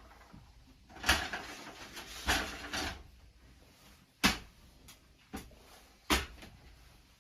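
Scraping from something being handled and shifted, twice, then two sharp knocks with a few lighter taps between, like pieces being set down or a cabinet door closing.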